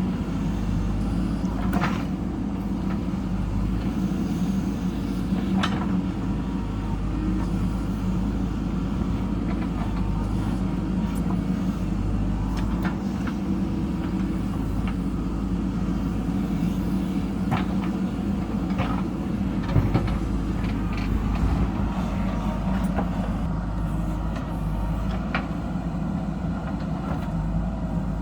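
JCB backhoe loader's diesel engine running steadily at working revs, with a few short sharp knocks scattered through it.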